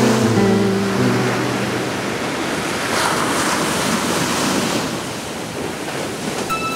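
A steady rushing noise, with a few held music notes dying away in the first second or so.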